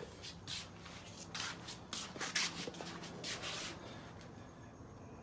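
Several short rubbing, scuffing noises a second or so apart, made by someone walking with a handheld phone.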